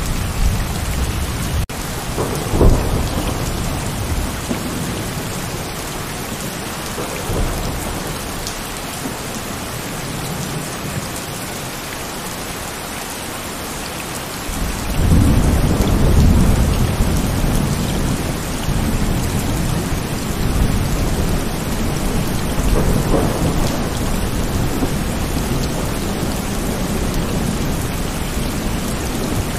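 Heavy rain falling steadily, with rolls of thunder rumbling low: a short one about two and a half seconds in and a longer, louder roll starting about halfway through.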